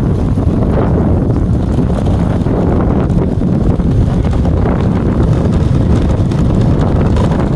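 Wind buffeting the microphone: a loud, steady low rumble that runs on without a break.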